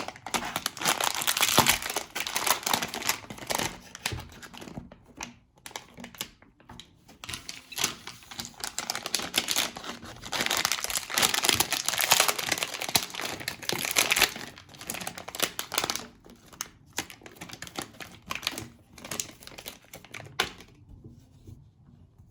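Plastic packaging crinkling and tearing as it is handled and opened, in irregular bursts with short pauses between them.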